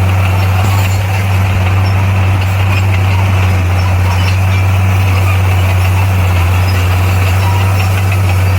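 Bulldozer's diesel engine running steadily under load with a constant low drone, no change in pitch.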